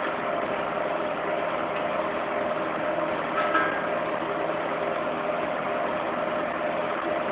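Electric fan heater running: the steady rush of its blower fan over a constant motor hum, with a brief higher-pitched note about halfway through.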